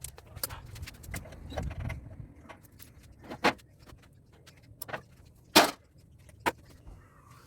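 Sharp metal clinks and knocks, about five of them spread out, the loudest about five and a half seconds in: tools and scrap metal parts being handled while an air-conditioner condenser is taken apart.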